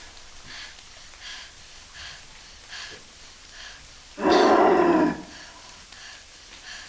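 A person's voice imitating an animal's roar, done live as a vocal sound effect: one loud roar about four seconds in, lasting about a second, with faint short sounds repeating at even spacing before and after it.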